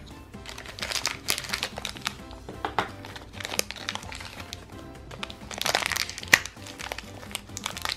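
A thin crinkly wrapper being torn open and unwrapped by hand, crinkling in several spells with the loudest about six seconds in, over soft background music.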